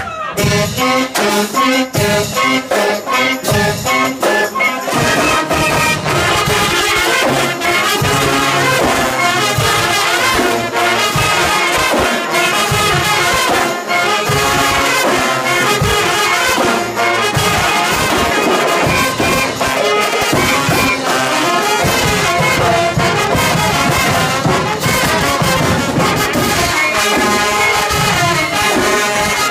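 Marching band playing a tune at close range: brass horns such as trumpets and trombones together with flutes, over a steady beat.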